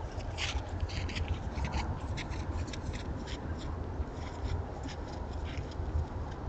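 White-tailed deer footsteps crunching in snow: short, irregular crunches, several a second, thinning out after about four seconds, over a steady low rumble.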